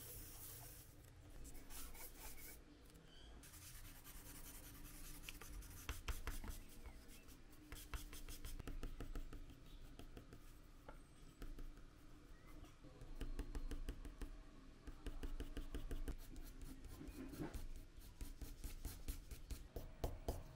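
Charcoal and graphite pencil scratching on cardboard in quick hatching strokes, coming in dense runs of short strokes.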